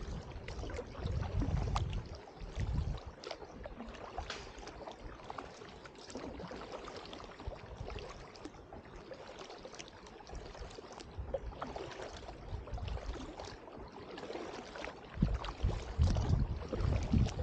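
Kayak paddle strokes, with water splashing and dripping off the paddle blades in scattered ticks. There is low rumbling in the first few seconds and again near the end.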